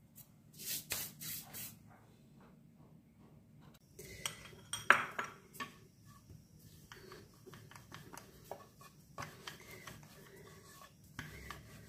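Kitchen handling sounds: a few short hissing rustles in the first two seconds, then scattered taps and clicks as a ball of dough is floured and rolled out with a wooden rolling pin on a wooden rolling board, with one sharp knock about five seconds in.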